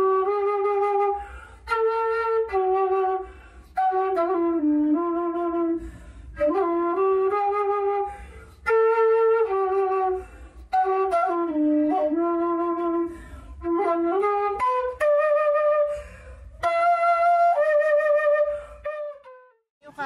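Background music: a flute plays a melody in short phrases of about two seconds, with brief pauses between them. It stops just before the end.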